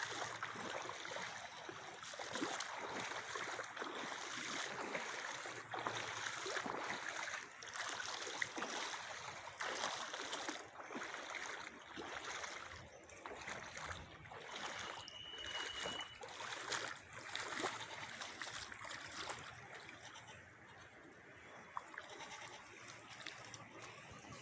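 Floodwater running off the hills, a fluctuating rushing and splashing of water.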